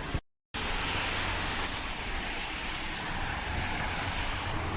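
Steady car cabin noise: a running car's low engine and road rumble with an even hiss of rain. There is a short cut-out to silence near the start.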